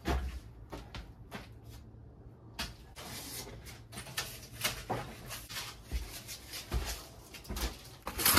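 Irregular knocks, low thuds and scraping clicks from work at the doorway, with no steady sound between them.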